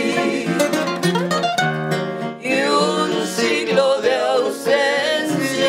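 Nylon-string acoustic guitar playing a melodic instrumental passage of a song, the notes gliding and wavering in places.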